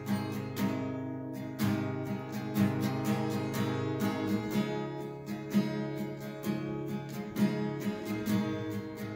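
Acoustic guitar strummed in a steady rhythm of repeated chords, with no singing.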